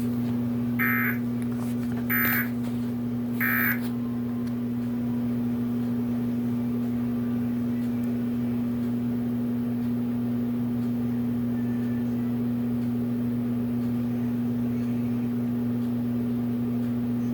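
Emergency Alert System end-of-message data tones: three short bursts of warbling digital tones about a second apart, signalling the end of the alert. A steady low electrical hum continues under and after them.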